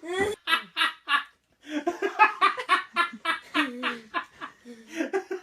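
People laughing in a run of short bursts, with a brief pause about a second and a half in.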